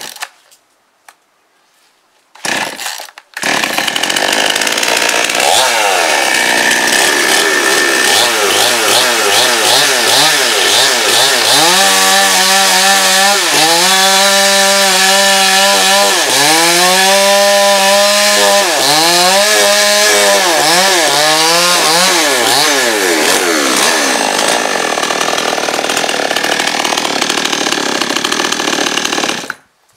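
Chinese-made 52 cc two-stroke gasoline chainsaw ('Chain Saw 5200') starting after two short bursts, then running loud at high revs as it crosscuts a stack of boards. In the middle its pitch repeatedly drops and recovers as the chain bites into the wood under load. The engine cuts off suddenly shortly before the end.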